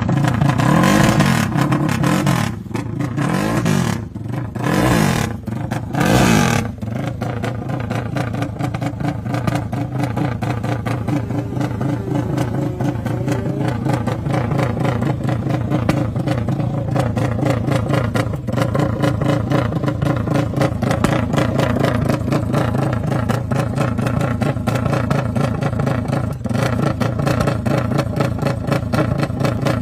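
Motorcycle engine with a fully open exhaust being revved in quick throttle blips for the first seven seconds or so, then left running steadily with a fast, rapid firing beat.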